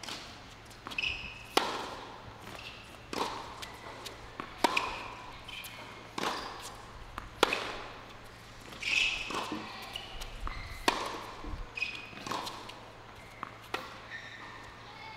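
Tennis ball struck by rackets and bouncing on a hard court in a rally, a sharp knock about every second and a half. Short squeaks in between.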